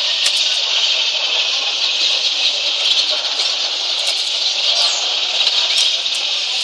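Many caged canaries chirping and singing at once, a steady high-pitched chatter.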